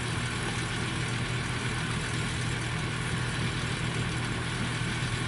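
Yanmar 82 combine harvester standing still with its engine running steadily and a constant low hum, the machine running empty without cutting.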